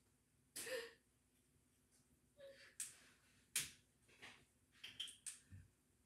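Quiet room with a handful of faint short clicks and knocks, a brief rustle about half a second in, and a low thud near the end.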